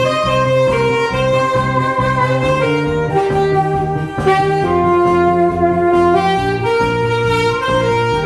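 Instrumental break of a Korean trot song: a saxophone plays a slow melody of held notes over a steady backing band with bass and guitar.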